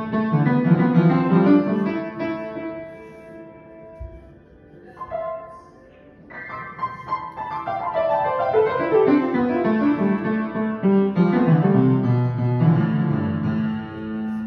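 Upright piano played by a small child: loose runs and clusters of notes, loud at first, thinning to a few sparse notes for a few seconds, then dense and loud again from about six seconds in.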